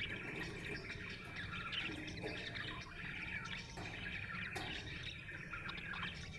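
Budgerigar chirping in a rapid, continuous stream of short notes, over a steady low hum.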